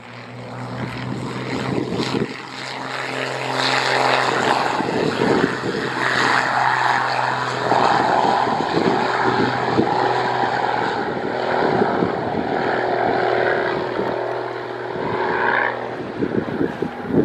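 Boeing 737-800's CFM56 jet engines running at taxi power, a steady whine and hum that fades in over the first few seconds.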